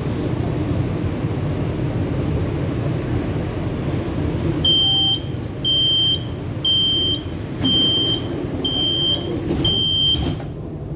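CSR Zhuzhou 'AMY' light rail train's running rumble on the elevated track. About halfway through, an electronic beeper sounds six short, high beeps about a second apart, with a couple of sharp clicks near the end.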